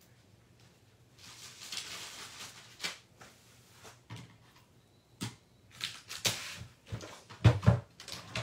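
Craft supplies being handled on a desk: a rustle early on, then a series of separate taps and knocks, the loudest near the end as a plastic tape runner is set down on the cutting mat.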